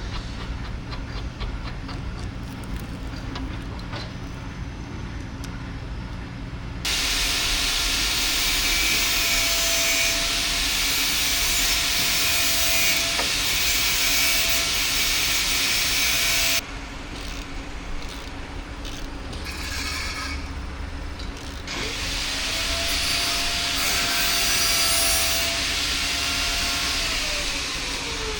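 A low steady hum, then a handheld electric power tool running in two long stretches: a loud grinding hiss with a steady motor whine. The whine climbs as the tool spins up and drops as it winds down near the end.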